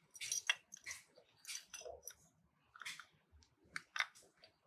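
Light, irregular clicks and scrapes of small carburetor parts being handled: the float bowl and its spring on a Bendix Zenith carburetor.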